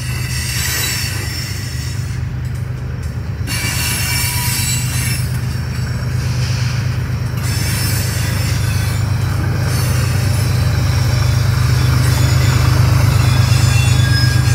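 Train rolling past: a steady low rumble with thin high-pitched wheel squeal, growing slightly louder toward the end.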